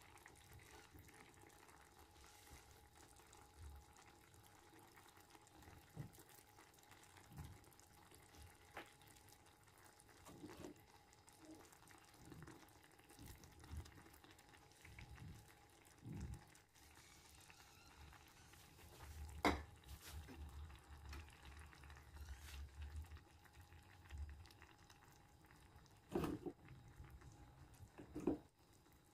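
Quiet kitchen handling sounds: scattered soft knocks and clinks of cookware and utensils, the sharpest about two-thirds of the way through and twice more near the end.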